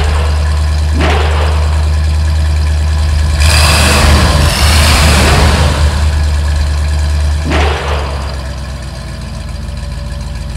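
Cartoon racing-car engine sound effects: a steady low engine drone with louder swells about a second in, from about three and a half to five seconds, and near eight seconds, after which it drops to quieter, steady running.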